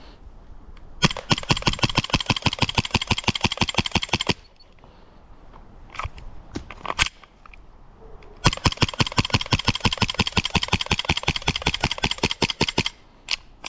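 M17 gas blowback airsoft pistol fired rapidly: two fast strings of sharp shots, each about three to four seconds long, with a few single shots between and after them.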